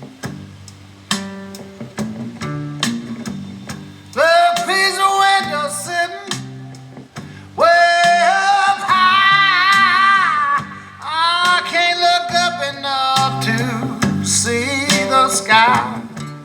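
Car audio system with a 12-inch NeoPro speaker and a D4S horn playing a song with guitar and singing, heard from 25 feet away. A plucked bass line runs throughout, and loud sung phrases come in about four seconds in, again near eight seconds and again near eleven.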